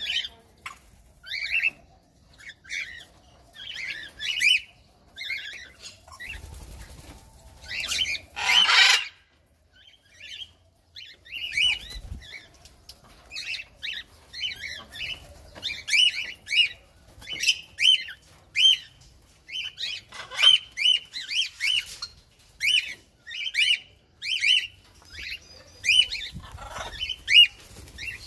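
Aviary birds, cockatiels and budgerigars among them, calling in a run of short repeated chirps that come several a second in the second half. About eight seconds in there is one loud, harsh burst of noise.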